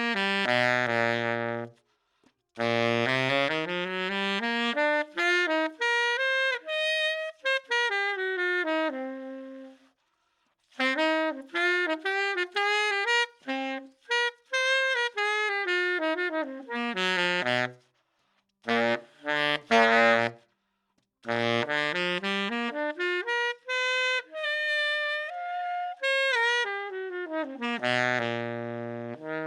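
Tenor saxophone played solo on a 3D-printed Desert Blush 7 mouthpiece, annealed. It plays phrases of quick runs up and down, some sinking to low notes, with short pauses between phrases.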